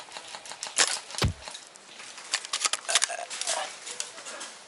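Irregular rustling and crackling, as of movement and handling of gear on the microphone. There is one sharp knock about a second in and a run of quick crackles in the middle.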